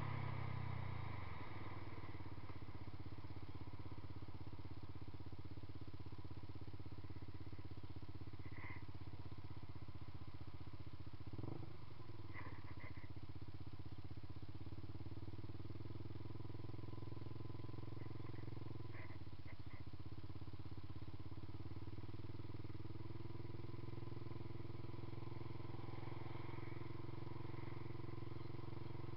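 Yamaha YZF-R15's 150 cc single-cylinder engine, breathing through a Two Brothers Racing aftermarket exhaust, drops in revs as the bike rolls to a stop in the first second or two, then idles steadily.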